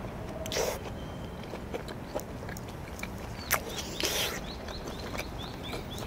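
A person chewing grilled pork with the mouth closed, with wet mouth clicks. In the second half a small bird chirps repeatedly in the background, a few times a second.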